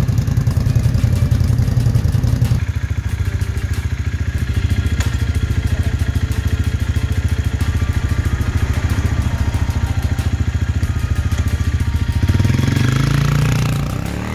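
Two motorcycle engines, a twin-cylinder 1000 cc and a single-cylinder 250 cc, idling together while warming up. After a cut, the single-cylinder Hyosung Exiv 250N idles steadily, then revs up about 12 seconds in as it pulls away and fades.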